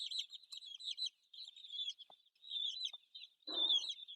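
A flock of young chickens peeping continuously in quick, high-pitched calls while feeding on egg yolk, with a brief scuffle about three and a half seconds in.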